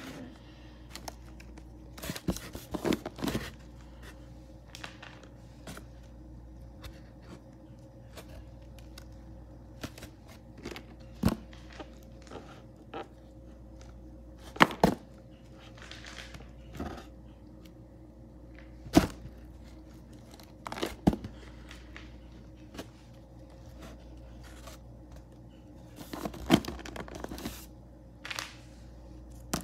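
Plastic toy animal figures knocking and clattering against each other and the box as they are rummaged through by hand: scattered sharp knocks at irregular intervals, with a quick cluster of them near the end.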